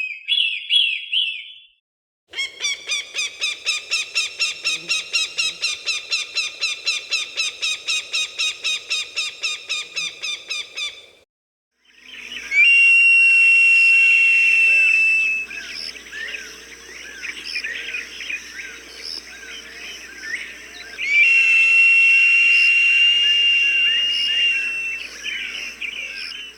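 Hawk calls: a rapid run of sharp, evenly repeated notes at about four to five a second for some eight seconds. After a short break come two long, high, steady screams several seconds apart, with other birds chirping faintly between them.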